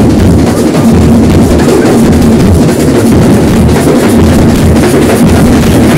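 Street band set's large bass drums and other drums beating loudly and without a break, dance music for a procession.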